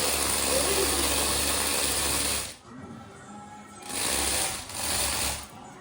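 Small electric motors and plastic gears of a remote-controlled building-kit robot running in bursts: one run of about two and a half seconds, then two short runs near the end.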